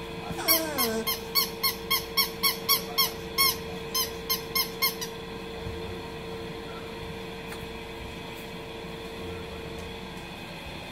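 Dog's rubber squeaky toy squeaked over and over in quick short squeaks, about three a second, stopping about five seconds in, as a puppy chews it. A steady faint hum runs underneath.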